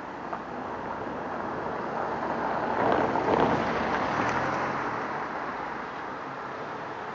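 A vehicle passing by, its tyre and engine noise swelling to a peak about three seconds in and fading away, over a steady outdoor background hiss.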